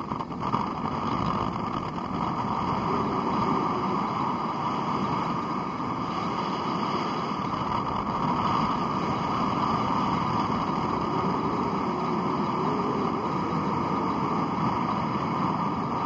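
Steady rush of wind on the microphone at the bow of a moving ferry, mixed with the boat's engine and water noise.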